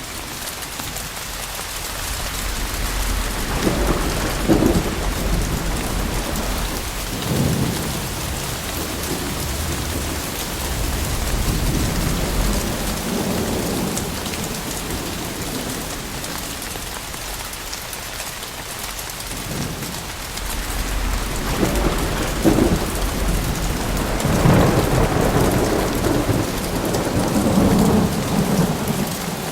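Steady heavy rain during a thunderstorm, with two long rolls of thunder rumbling in, one a few seconds in and a longer one in the second half.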